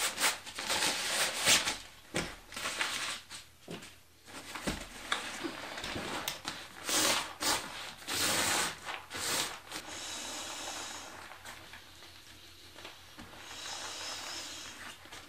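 Nylon storage bag and Therm-a-Rest sleeping mat rustling and crinkling as the mat is pulled out of its bag and unrolled on a carpet, in irregular handling noises. Near the end there are two soft, steady hisses.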